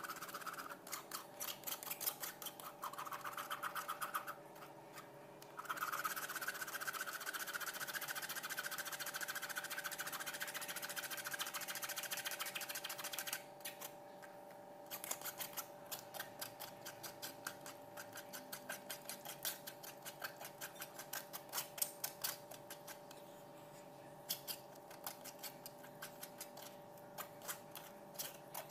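A mesh strainer bag full of blended dragon fruit and pineapple pulp being squeezed and kneaded by hand, giving a scratchy rubbing sound with many quick irregular ticks. A steady hiss underneath stops about halfway through.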